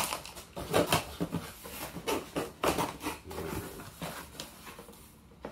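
Cardboard shipping box being opened: a knife scraping and slitting through strong packing tape, with the cardboard flaps rubbing and rustling in irregular scratches and scrapes.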